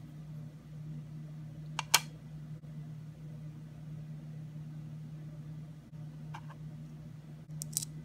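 Small sharp plastic clicks as the clear plastic ice cubes of a miniature toy ice cube tray are handled out of and back into the tray: a loud double click about two seconds in, a faint one later and a few more near the end. A steady low hum runs underneath.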